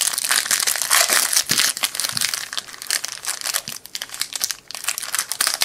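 Clear plastic wrapper of a trading-card pack crinkling and crackling as hands work it open, a dense run of small crackles.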